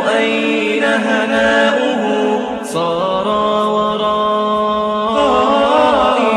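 Unaccompanied Arabic nasheed singing: a voice drawing out long sung notes with no instruments. The notes glide between pitches, with a short break and a step in pitch about two and a half seconds in, then a long steady note before the melody bends again near the end.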